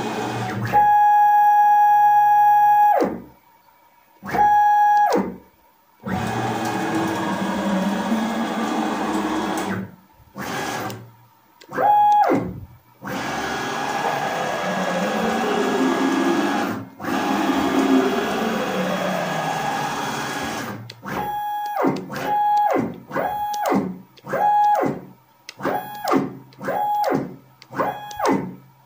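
Nema 23 stepper motors of a homemade CNC router, on DM542 drivers at 36 V, jogging the gantry at rapid feed with the spindle off: a musical whine that holds one pitch on fast moves and slides up and down as the motors accelerate and decelerate, cutting off sharply between moves. Near the end comes a quick string of short moves, each a brief whine followed by a silent gap.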